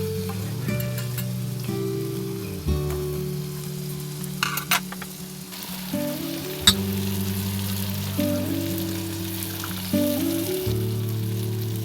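Food sizzling in a pan, with a few sharp clicks near the middle, under soft background music of held notes that change pitch in steps.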